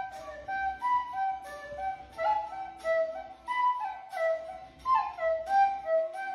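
A recorder playing a simple stepwise tune, about three to four short notes a second, the plain sound of a beginner's practice melody.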